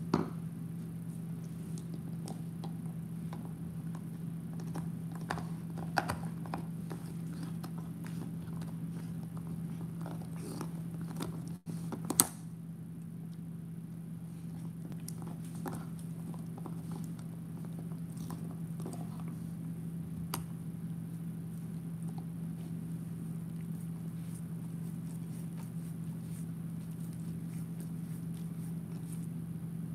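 Bernese mountain dog gnawing and chewing on a bone close to the microphone: scattered scraping and crunching clicks, the sharpest about 6 and 12 seconds in and sparser in the second half, over a steady low hum.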